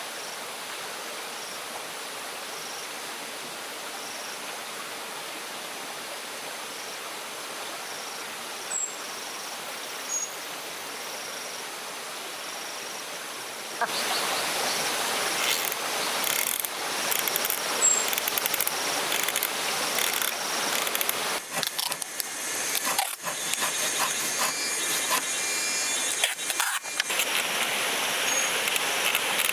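Outdoor ambience. First a steady hiss with faint insect chirping; about halfway through it jumps to a louder rushing like running water, with irregular clicks and knocks over it.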